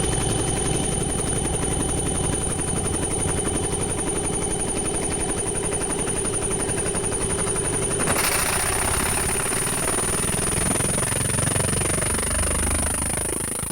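Laser printer running with a rapid, even mechanical pulsing and a thin high whine. About eight seconds in a hiss joins it, and the sound drops away near the end.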